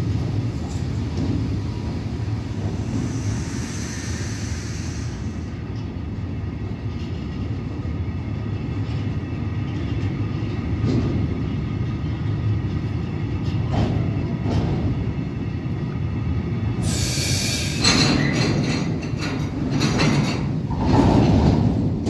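Freight train of covered hopper wagons rolling steadily past, with the deep rumble of wheels on rail and a few sharp clacks at rail joints. A short loud hiss comes about 17 seconds in.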